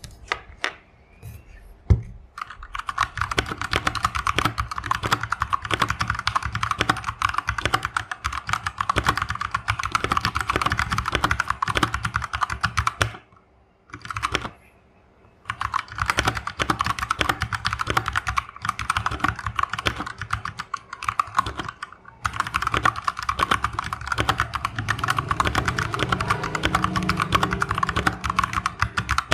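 Fast, continuous typing on a Keychron K4 mechanical keyboard close to the microphone: dense key clacks in long runs, broken by a pause of about two seconds near the middle and a brief one later, after a few single key clicks at the start.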